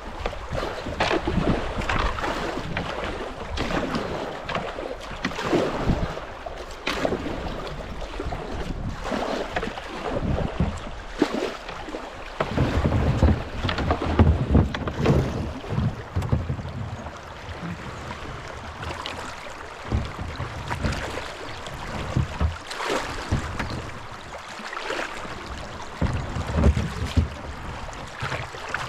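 Kayak paddling in a shallow creek: repeated paddle strokes splashing in the water every second or two, with stretches of low rumble.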